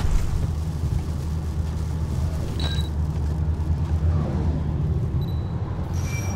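An engine running steadily at an even speed, a low hum with a light haze of road or water noise over it.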